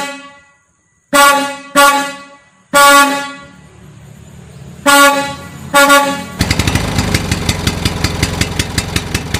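Five blasts of a truck air horn, each sounding suddenly and then fading. From about six seconds in, an engine runs with a fast, even putter.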